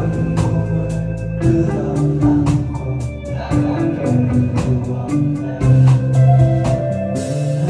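Rock band playing live: an instrumental passage with guitar and a steady drum beat, no singing.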